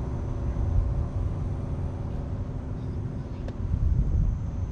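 A vehicle engine's steady hum that stops about three and a half seconds in, over continuous low rumbling outdoor noise.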